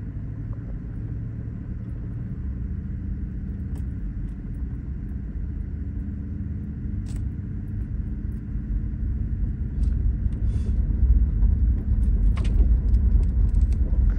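A truck driving along a dirt lane, heard from inside the cab: a steady low rumble that grows louder over the second half, with a few faint clicks.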